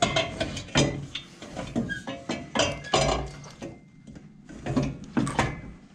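Flowtech multi-piece long-tube steel header being worked into place by hand, clanking and scraping against the frame and steering parts in a series of irregular metal knocks and clinks.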